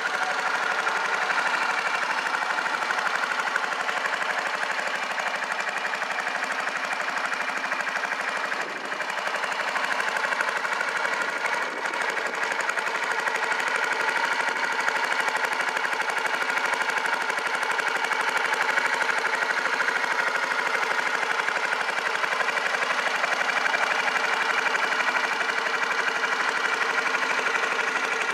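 A 2005 Yamaha Majesty 250C scooter's single-cylinder four-stroke engine idling steadily through an aftermarket muffler.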